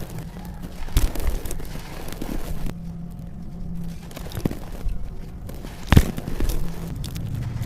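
Dry red dirt and coal pieces crumbling and being crushed: a gritty, crunchy rustle broken by sharp cracks, the loudest about a second in and about six seconds in, over a low steady hum.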